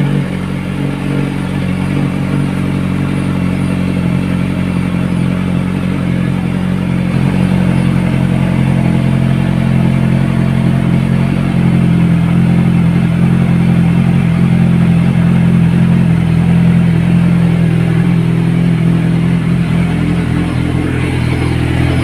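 Kawasaki Ninja 1000SX's inline-four engine idling steadily through a Yoshimura R77 slip-on muffler, warming up after a cold start. It grows slightly louder partway through.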